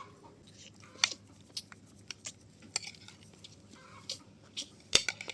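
A run of irregular sharp clicks and crunches, the loudest about a second in and again near the end.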